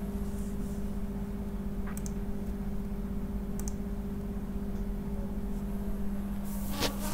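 Room tone: a steady low electrical hum with a few faint clicks, and a short rustle of movement near the end.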